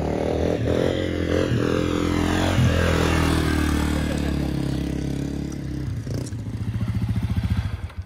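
Honda CRF250F's single-cylinder four-stroke engine running at raised revs that ease off. About six seconds in it settles into an even, pulsing idle.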